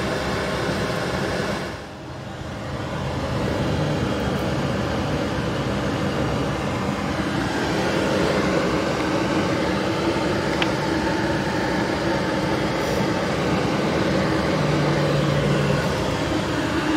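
Truck engine and road noise heard inside the cab while driving through town, a steady low hum that dips briefly about two seconds in.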